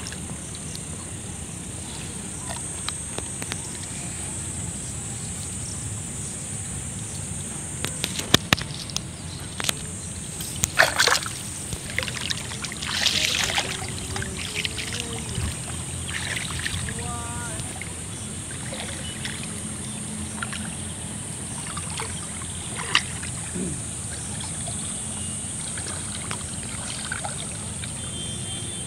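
Water sloshing and splashing as a man wades through waist-deep floodwater setting a gill net, with a cluster of louder splashes near the middle. A steady high-pitched hum sits behind it.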